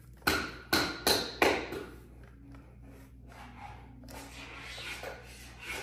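Plastic parts of a toddler balance bike being knocked together during assembly: four sharp knocks in the first second and a half, then quieter rubbing and handling of the parts.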